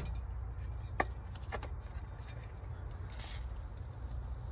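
A few sharp clicks and clatters as a WD-40 aerosol can is handled over the carburetor, then a short spray hiss about three seconds in as penetrating oil goes onto the seized carburetor linkage. A steady low rumble runs underneath.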